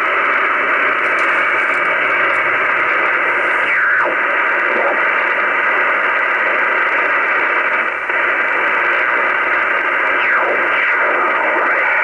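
Shortwave radio receiver hiss and static between stations, with a whistle gliding down in pitch about four seconds in and again near ten seconds, as the receiver is tuned across signals.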